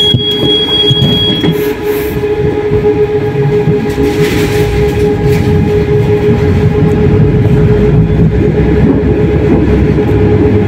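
Moderus Beta MF20AC tram under way along the track: rumble of wheels on rail with a steady hum, and a thin high tone that stops about a second and a half in.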